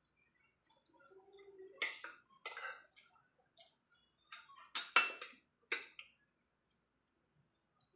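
Metal fork and spoon clinking and scraping on a ceramic plate: a few separate clinks, the loudest about five seconds in with a brief ringing.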